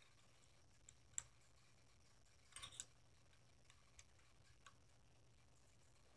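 Faint metal clicks of a hex key turning the bolts of a stunt scooter's handlebar clamp as they are tightened: a couple of single ticks, a short cluster of clicks about two and a half seconds in, then a few lighter ticks.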